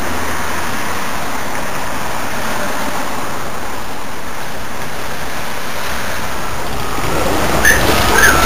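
Steady hiss of street traffic noise. Near the end a higher, wavering tone begins over it.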